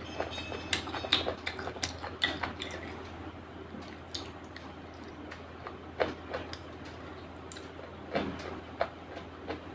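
Close-miked eating sounds: irregular wet clicks of chewing and mouth noises, busiest in the first few seconds and sparser after, over a steady low hum.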